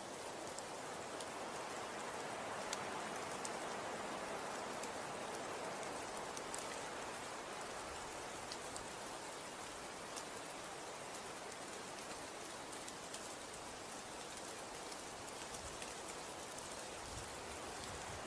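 Falling snow, or wet snow and sleet, landing on surfaces: a steady hiss with scattered light ticks.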